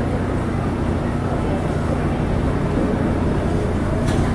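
R142 subway train pulling slowly into a station, a steady low rumble of motors and wheels on the rails, with a short high hiss near the end.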